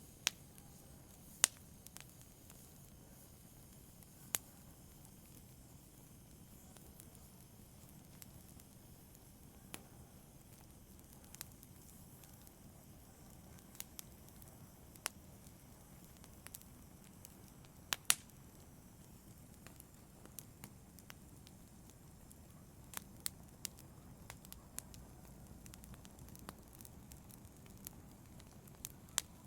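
Fireplace fire crackling quietly: scattered, irregular sharp pops and snaps over a faint low rumble of the flames.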